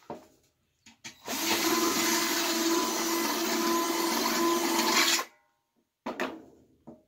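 Cordless drill boring a hole through the side of a metal one-gallon paint can with a bit that is a little dull. The drill runs steadily at full speed for about four seconds, starting about a second in, and is followed by a couple of light knocks.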